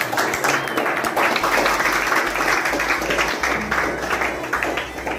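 A room full of people clapping together in dense, continuous applause that thins out near the end.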